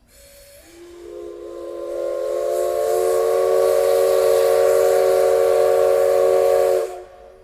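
Steam locomotive whistle, most likely C62 2's, giving one long blast. It opens with a hiss of steam, then a chord of several steady tones comes in, swells over a couple of seconds, holds and cuts off sharply.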